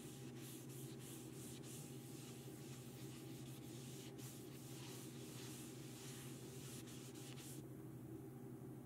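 A rag wiping pre-stain wood conditioner onto a wooden board: a soft, scratchy rubbing in quick back-and-forth strokes that stops near the end, over a steady low hum.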